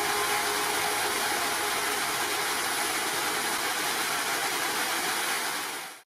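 Steady rush of water tumbling over rocks in a waterfall stream, fading out at the end.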